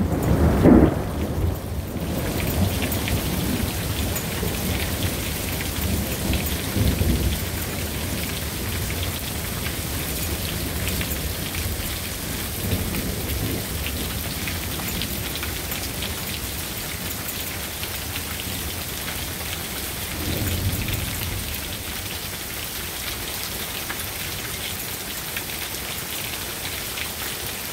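Thunder rumbling and dying away in the first second or two, then heavy rain pattering steadily on the patio and pool, with quieter rolls of thunder about seven seconds and twenty seconds in.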